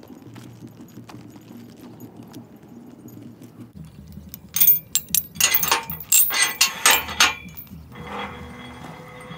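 Heavy steel chain on a rusty metal pasture gate rattling and clinking as it is unwrapped from the gatepost by hand, a quick run of metallic jangles from about halfway through, followed by a softer scrape near the end.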